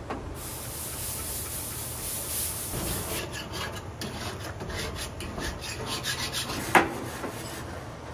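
A grill brush scrubbing back and forth over the gas grill's grates in a steady, rhythmic scraping. A single sharp knock comes about two-thirds of the way through.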